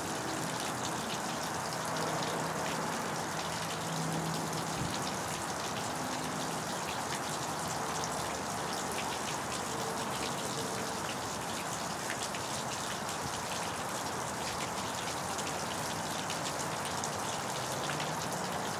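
Steady splashing of water pouring out of an outboard motor being flushed through its cooling system with a garden hose.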